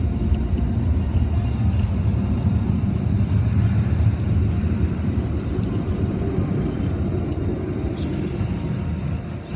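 Automatic tunnel car wash equipment heard from inside the car's cabin as a steady, muffled low rumble, dropping in level near the end.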